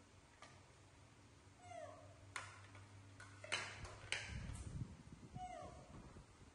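A baby macaque gives two short, falling squeaky calls, about two seconds in and again near the end. Metal tongs clink a few times against the wok and plates.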